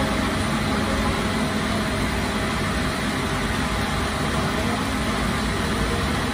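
Steady mechanical drone of bakery machinery running.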